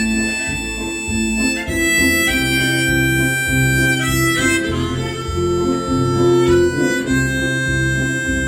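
Harmonica playing the slow melody of an instrumental break over guitar accompaniment, each held note giving way to the next every second or two.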